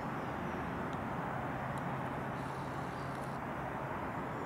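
Steady outdoor background rumble and hiss, like distant traffic, with a low steady hum that stops about three and a half seconds in.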